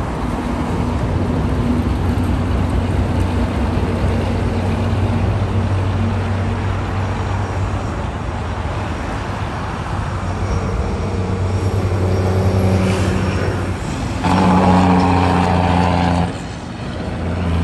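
Heavy diesel trucks and cars passing on a busy road, engines running with a steady low hum over traffic noise. About three-quarters of the way through, a louder truck engine note comes in suddenly and cuts off about two seconds later.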